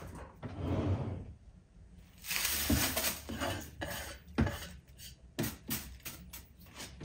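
Dry onion skins rustling and scraping as they are swept off a wooden cutting board into a plastic-lined bin, followed by a string of light knocks and clicks.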